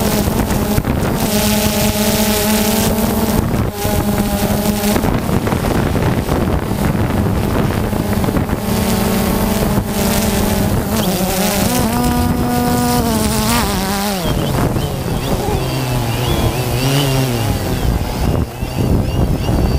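DJI Phantom 2 quadcopter's propellers and motors humming steadily, with a buzzing, insect-like tone. Its pitch rises briefly about two-thirds of the way in, then drops and wavers as the drone lands itself on its fail-safe. Wind rushes across the microphone throughout.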